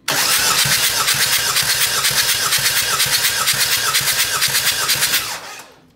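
Starter cranking a Ford Mondeo IV 2.0-litre turbodiesel engine for about five seconds, with an even pulsing as the pistons come up on compression, then it stops. This is a compression test on the first cylinder, the gauge climbing to about 28 kg/cm².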